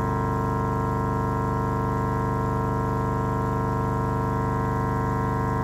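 A small 15 W Toshiba speaker, driven by a low-power amp, plays a steady low sine test tone from a phone function generator. It comes out as a constant low buzzing hum with many overtones, the level unchanging.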